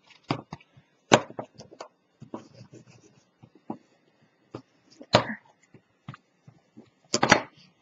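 Paper-covered card strips being handled, folded and pressed down on a cutting mat: scattered light taps and rustles, the loudest about a second in, around five seconds in and near the end.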